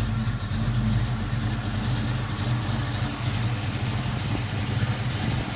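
A 1980 Ford Mustang's engine idling steadily, with its newly fitted clutch fan turning.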